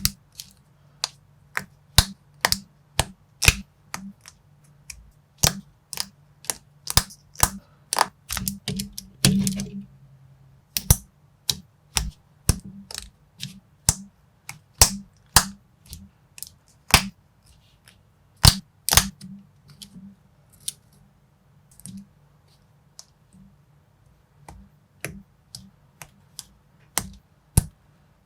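Plastic building bricks being pressed and snapped together: sharp clicks, one to two a second, with a denser run of clicks and a rustle of loose parts about a third of the way in.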